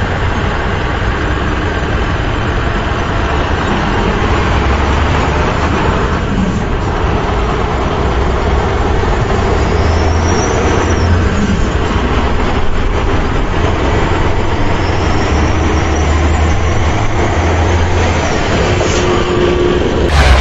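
A heavy vehicle engine running steadily, its low rumble swelling and easing now and then.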